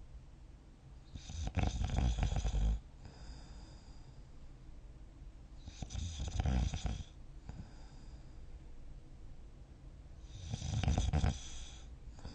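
A sleeping person snoring: three loud snores, each lasting a second or more, about four to five seconds apart, with soft breathing between them.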